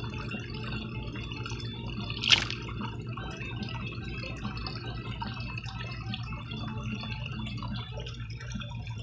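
Pond water trickling and dripping steadily over a low hum, with one sharp splash at the surface about two seconds in.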